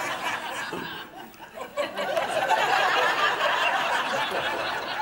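Studio audience laughing, dipping briefly about a second in and then swelling again.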